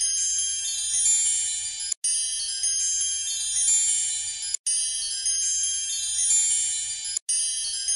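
A looped twinkling chime sound effect, like wind chimes: many high tinkling tones ringing together, cutting out briefly and restarting about every two and a half seconds.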